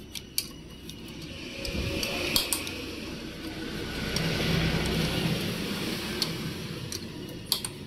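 A motor vehicle's engine noise swells and then fades away as it goes by. A few light metallic clicks from a ring spanner working the motorcycle's cylinder-head cover bolts sound through it.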